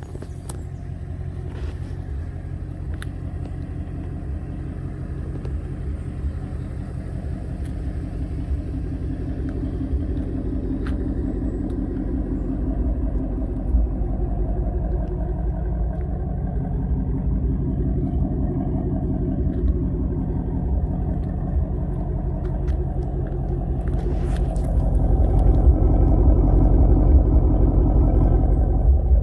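Ford Mustang Shelby GT350's V8 engine running at a steady speed with a deep rumble, growing gradually louder and loudest in the last few seconds.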